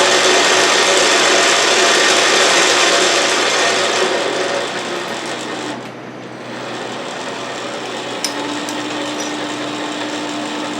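Autobox 8x16 mini lathe running with its cutting tool on the workpiece, making a loud, even grinding scrape. About six seconds in the cut stops, and the lathe's motor and spindle run on with a steadier, quieter hum.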